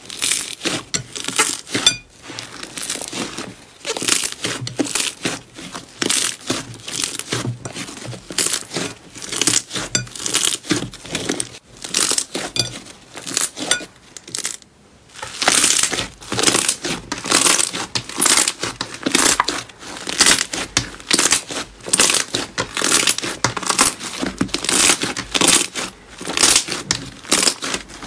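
Hands squeezing, kneading and pressing thick slime, giving a continuous run of short crackly, crinkly squishes. About halfway through there is a brief pause, then a fluffier slime is pulled and pressed with louder crackling.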